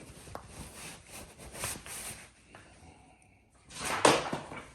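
Plastic bag and packaging rustling and crinkling as they are handled, with a few light clicks and knocks; the loudest burst of rustling comes about four seconds in.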